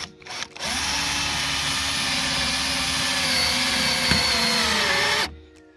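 Electric drill running, boring a small pilot hole through the car's bodywork for a spoiler mount, into a block of wood set beneath. It starts about half a second in, runs steadily, its pitch dips slightly just before it stops.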